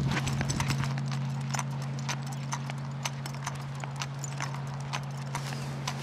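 Claws of a Newfoundland dog clicking on a paved path as it walks on a leash: a quick, uneven run of ticks, over a steady low hum.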